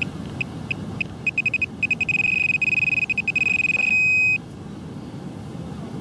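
Handheld metal-detecting pinpointer probed into beach sand, beeping on one high pitch: single beeps speed up into rapid beeps and then a steady tone as it closes on a buried coin. It ends in a brief harsher buzz and cuts off about four and a half seconds in.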